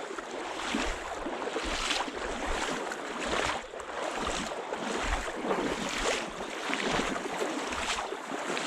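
Water sloshing and splashing in uneven surges about once a second, as someone wades through a shallow creek.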